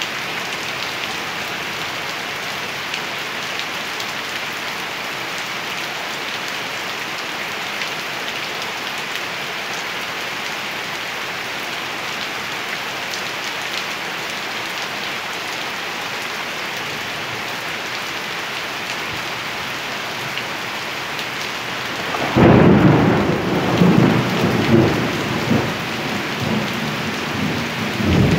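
Steady rain falling in an even hiss. About twenty-two seconds in, thunder breaks in suddenly, loud and low, and rumbles on in several swells.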